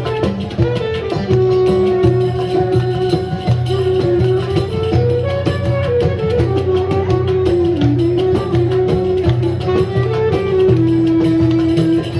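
Traditional Ottoman-style folk music: a sliding melody line over a steady beat of drum and rattling hand percussion.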